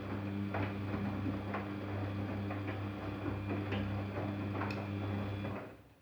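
Daewoo DWD-FT1013 washing machine running: a steady motor hum with irregular clicks and knocks from the drum, cutting off about five and a half seconds in.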